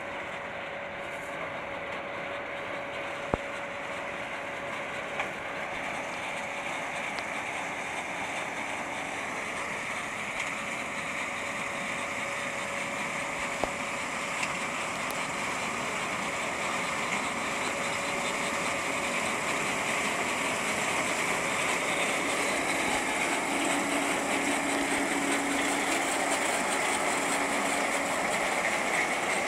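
John Deere 1450 CWS combine harvester running while cutting maize, a steady mechanical drone of engine and threshing gear that grows gradually louder as it comes close. One brief sharp click sounds about three seconds in.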